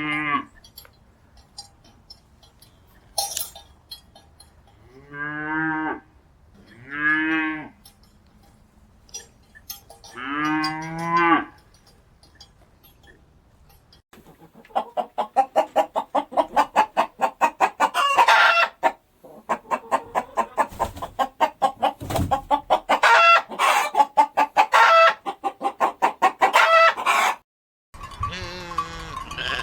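Cattle mooing, four separate drawn-out calls in the first half, then chickens clucking in quick, rapid pulses for most of the second half.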